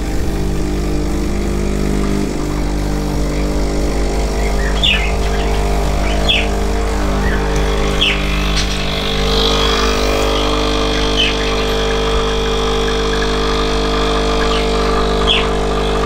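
Sage Barista espresso machine's pump humming steadily while it pulls a double shot of espresso.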